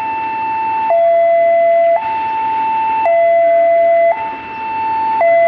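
Railway level-crossing warning alarm sounding its two-tone electronic signal, a lower and a higher note alternating about once a second, the warning that a train is approaching.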